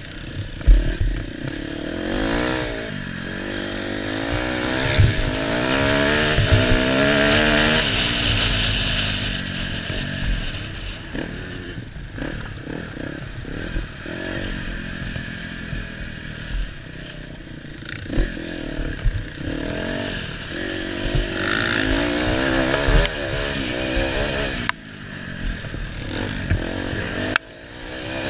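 KTM 250 EXC two-stroke dirt bike engine ridden hard on sand, its pitch climbing in long pulls and falling back as the throttle is shut and reopened. Sharp knocks come from the bike over bumps near the start.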